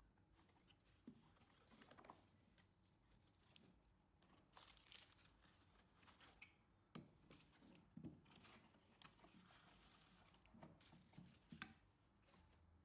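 Faint unboxing sounds: a cardboard product box handled and opened, with rustling of card and packaging and a few light knocks as the pieces are set down on the table.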